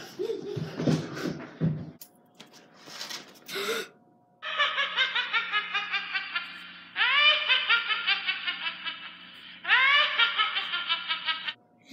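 Rapid high-pitched laughter, 'ha-ha-ha' at about four beats a second, in three long bursts that each open with a rising cry. A voice is heard briefly at the start.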